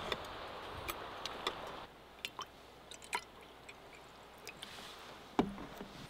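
Scattered light clicks and taps of metal chopsticks against a wooden cutting board and tableware while eating, with one heavier knock about five and a half seconds in. A steady background hiss of wind runs under the first two seconds and then cuts off.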